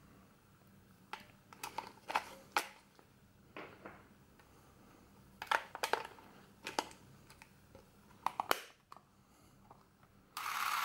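Plastic and metal clicks and knocks as AA batteries are fitted into the battery compartment of a Revue Super 8 Pocket L cine camera and its hinged cover is shut. Near the end the camera's film-drive motor starts up and runs steadily.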